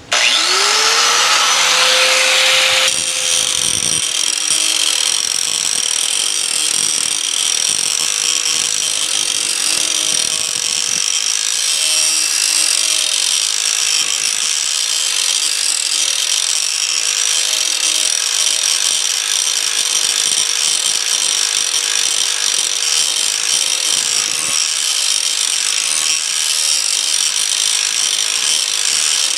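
Handheld electric grinder spinning up to speed, then grinding steadily along the steel edge of a Bush Hog rotary mower blade to sharpen it. The motor holds one steady pitch throughout, with a harsh, hissing grind over it from about three seconds in.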